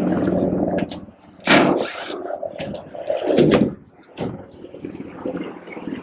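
Milwaukee cordless impact driver running as it backs screws out of a condenser unit's sheet-metal top panel, stopping about a second in. Two loud scraping knocks follow, about a second and a half and three and a half seconds in.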